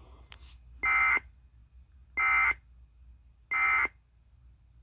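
Emergency Alert System end-of-message signal: three short, identical bursts of harsh digital data tones about a second apart, sent at the close of an alert to mark that the message is over.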